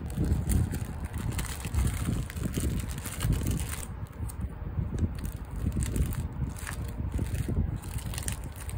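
Thin plastic triangle-kimbap wrapping film crinkling and crackling as it is folded by hand around a rice-and-laver triangle, with many small crackles and soft handling bumps.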